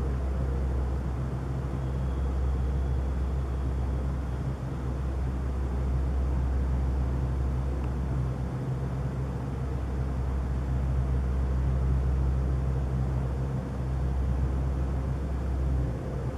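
Steady, deep droning hum with a second tone just above it, dipping briefly a few times: an unexplained low rumble heard over the city at night.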